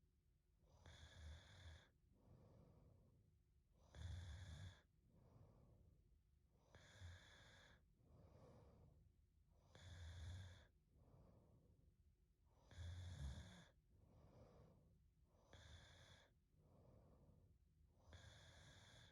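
A young woman breathing and snoring softly in her sleep, in slow regular breaths about every three seconds. Each stronger breath carries a light low snore, and a fainter breath follows between them.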